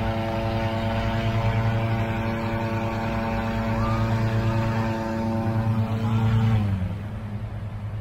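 A hot air balloon's engine-driven inflation fan running steadily, with the propane burner firing a long flame into the envelope. About seven seconds in, the fan engine's pitch drops as it slows down.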